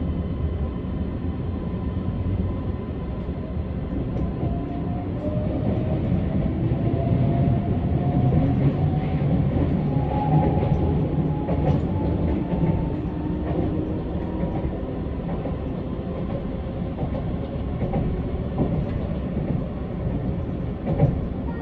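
Keisei AE-series electric train running, with a steady low rumble and a motor whine that rises in pitch over several seconds as the train picks up speed.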